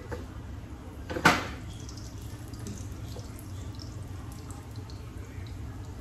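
Kitchen work sounds: one sharp clack about a second in, over a steady low hum, with a few faint small knocks after it.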